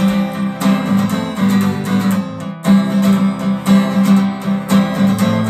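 Acoustic guitar strummed in a steady rhythm, with no singing: the instrumental break between verses of a worship song.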